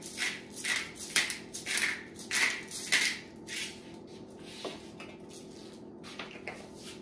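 Pepper shaker being shaken in a series of quick hissing shakes, about two a second, stopping about three and a half seconds in; a few light clicks follow over a low steady hum.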